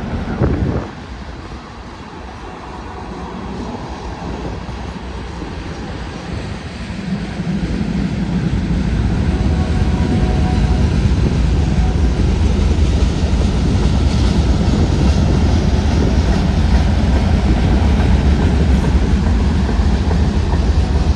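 Union Pacific manifest train's diesel locomotives and cars rumbling past. The deep, steady rumble builds over the first several seconds and then holds loud. There is a brief bump just at the start.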